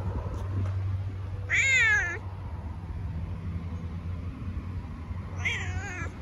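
Domestic cat meowing twice, close to the microphone: a wavering cry of under a second, then a second one about four seconds later, over a low steady hum.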